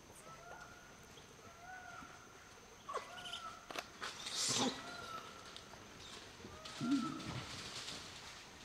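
Grey langurs scampering and scuffling over dry leaf litter, with two louder rustling scuffles in the second half. A faint short two-note animal call repeats every second or so behind them.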